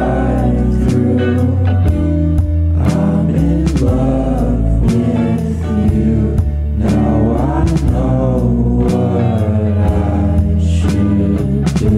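Background music: a song with a sung vocal over steady bass and a regular beat.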